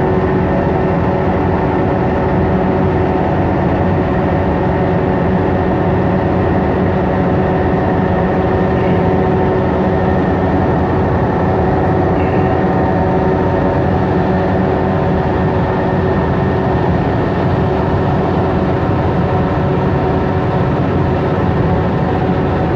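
Boat's engine running steadily: a loud, even drone with several held tones over a low rumble, heard on board.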